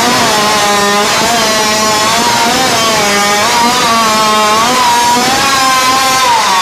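Modified competition chainsaw running loud at high revs, its engine pitch rising and falling as it cuts through a squared timber.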